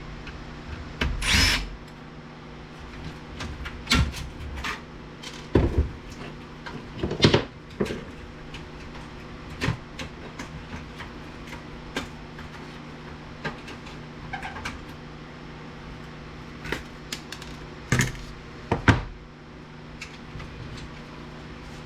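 Hand tools and metal parts of a VCR/DVD combo unit knocking and clattering as it is taken apart: irregular clicks and clunks with a few brief louder bursts, over a steady low hum.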